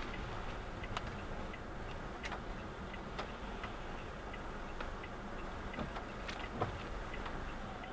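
A car's turn-signal indicator ticking steadily, about two and a half ticks a second, heard inside the cabin over the steady hum of the car and the rain. A few irregular sharper taps fall among the ticks, the loudest near the end.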